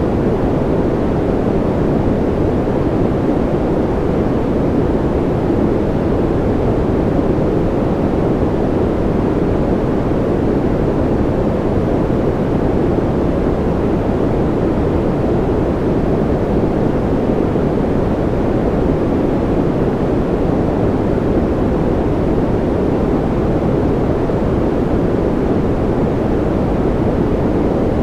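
Steady rain-style white noise: an even, deep rushing hiss that never changes.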